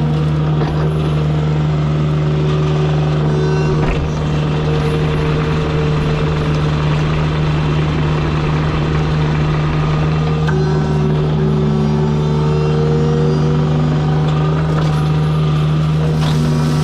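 Kubota U55-4 mini excavator's diesel engine running steadily under hydraulic load, with a strong constant hum and a few higher whining tones that come and go.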